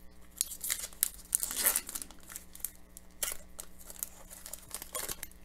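Foil wrapper of a hockey card pack crinkling and tearing as it is opened by hand, in irregular crackles that come thickest about a second and a half in.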